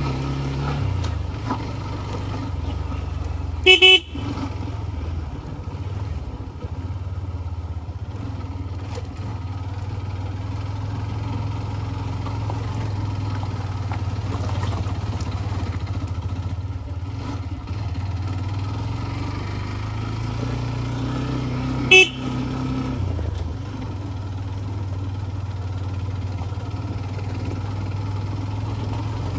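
A TVS Ntorq 125 scooter's single-cylinder four-stroke engine running steadily under way. A horn sounds two short beeps, one a few seconds in and one about two-thirds of the way through.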